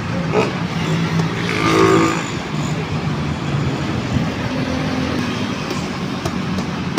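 Road traffic on a busy highway: vehicle engines and tyres run steadily, with one louder pitched passing vehicle sound about two seconds in.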